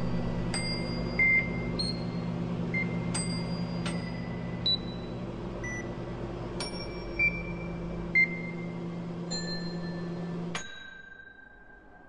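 A bank of microwave ovens running with a steady hum while their electronic beeps sound at irregular intervals. About ten and a half seconds in, the hum cuts off together with one last beep.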